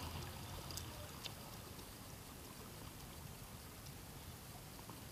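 Faint water lapping against a small boat, with a few light ticks about a second in.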